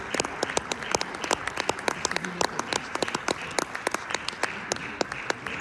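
Audience applauding, with many individual sharp claps standing out from the general clapping.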